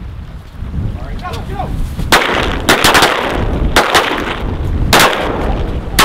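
Volley of shotgun blasts from several duck hunters firing at diving ducks over the decoys: about six shots in quick succession, starting about two seconds in, two of them nearly together. Wind rumbles on the microphone throughout.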